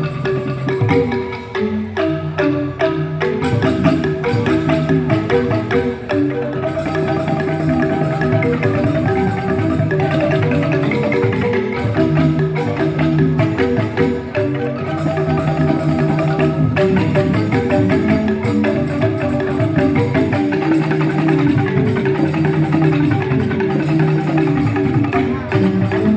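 Joged bumbung bamboo gamelan playing: bamboo xylophones (grantang) ringing in fast, dense interlocking patterns over steady percussion.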